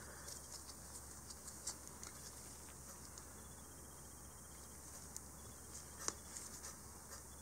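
Faint, scattered clicks and taps of small machined aluminum stock parts being handled and fitted together in gloved hands, the sharpest about six seconds in.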